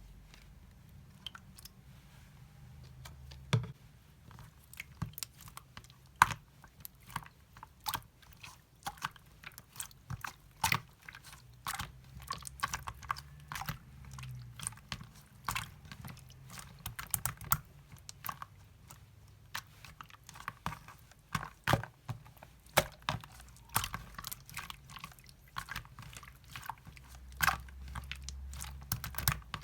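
Slime being squeezed and worked by hand, giving irregular sharp clicks and pops, several a second, with some louder snaps among them.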